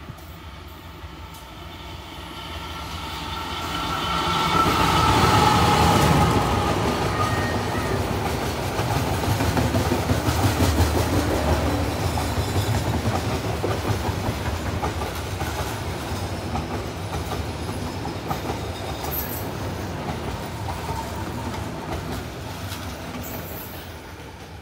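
Train approaching and rolling past, with wheels clattering over the rail joints. It grows loud over the first five seconds and fades near the end. A high steady tone rings out as it approaches.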